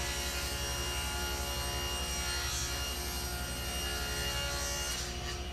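Table saw running steadily while a long alder board is ripped along the fence.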